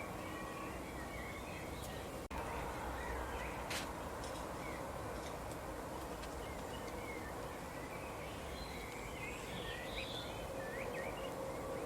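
Songbirds chirping in short, scattered calls over a steady outdoor background hiss, with the chirping growing busier near the end. There is a brief click-like dropout a little over two seconds in.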